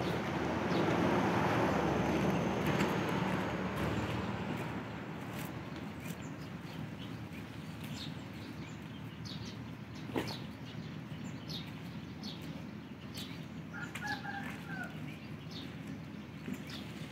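Leafy lead tree (krathin) branches rustling as they are handled, loudest in the first few seconds. Birds chirp in short, high notes throughout.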